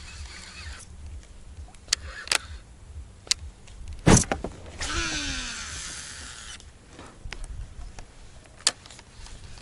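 Fishing rod and reel in use during a cast: a few sharp clicks, a loud knock about four seconds in, then about two seconds of line running off the reel with a hiss and a falling whine, followed by more light clicks.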